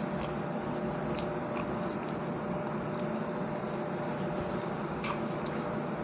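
Eating by hand: fingers squishing rice and fish curry on the plate and mouth chewing sounds, heard as a few soft clicks and squishes over a steady background hum.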